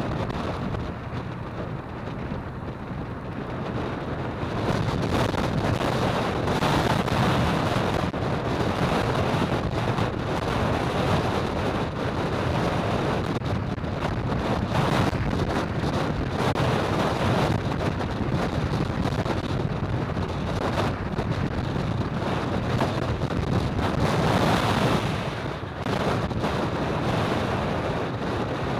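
Wind rushing over the microphone of a camera riding along at speed, rising and easing in gusts, over the steady noise of road traffic.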